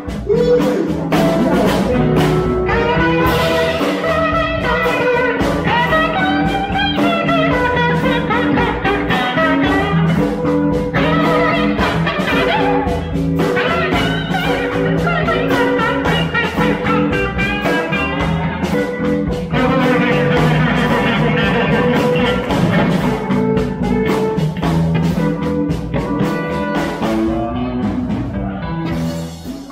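Live electric blues band playing a slow blues, led by a Gibson ES-347 semi-hollow electric guitar over drums. The music fades down at the very end.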